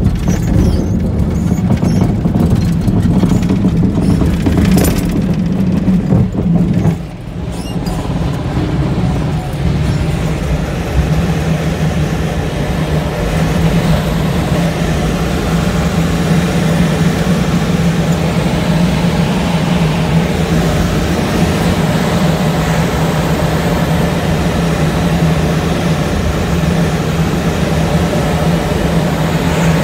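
Steady drone of the tow plane's engine and propeller, heard from inside the glider's cockpit during an aerotow takeoff, with rushing air and rumble as the glider rolls over grass and lifts off. The noise is roughest for the first several seconds and drops suddenly about seven seconds in.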